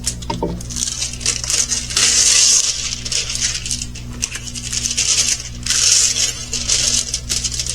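Plastic packaging crinkling and rustling as it is handled, in irregular bursts of a second or so.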